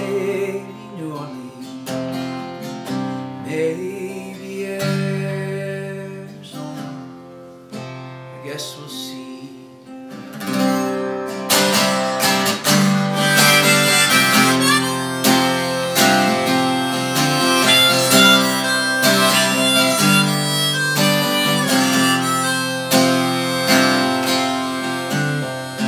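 Harmonica and acoustic guitar playing an instrumental passage; it gets much louder and fuller about ten seconds in.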